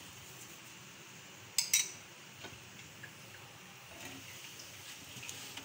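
Two quick metallic clinks of a kitchen utensil on cookware, about a second and a half in, over a faint steady hiss.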